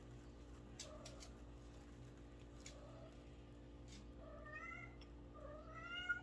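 Domestic cat meowing: a few faint meows, then two louder ones near the end, the last rising in pitch.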